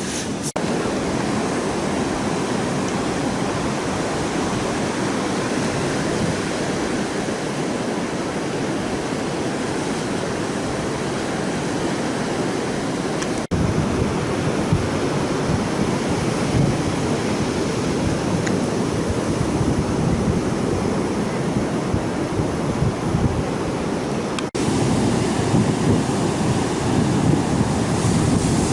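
Heavy surf breaking continuously on a beach, with wind blowing across the microphone; the sea is running high under a passing tropical storm. The sound jumps abruptly in level about halfway through and again near the end.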